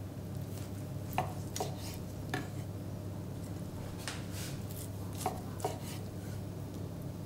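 Kitchen knife slicing a rolled rabbit saddle into rounds on a wooden cutting board. The blade knocks sharply on the board a few times about a second in and again past five seconds, with a brief scrape between, over a steady low hum.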